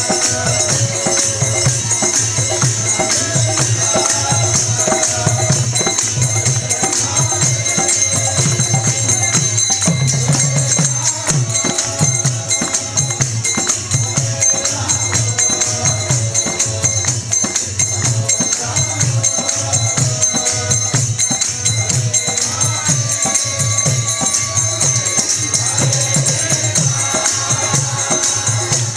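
Kirtan music: a mridanga drum keeps a steady beat while small hand cymbals (karatalas) ring continuously, with harmonium and chanting voices held above.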